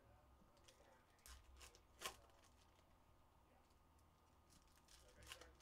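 Near silence with a few faint clicks of trading cards being handled and set down on a stack, the sharpest about two seconds in.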